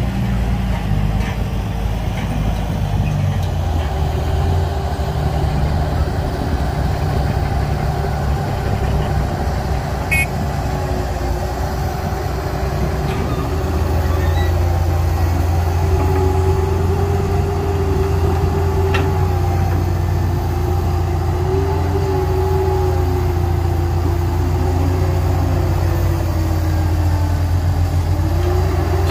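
Heavy diesel construction machinery running steadily with a deep rumble and a thin whine that wavers slightly in pitch; the engine grows louder about halfway through.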